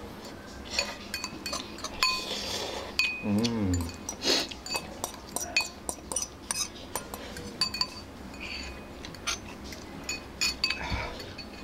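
Metal spoons and forks clinking and scraping against white ceramic bowls while eating noodles, with many sharp clinks, some ringing briefly. Short bursts of slurping in between, and a brief wavering vocal sound about three and a half seconds in.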